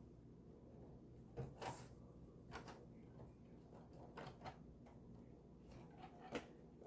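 Faint, scattered clicks and taps of molded plastic model-kit parts being handled and pressed together, about six light knocks spread over a few seconds.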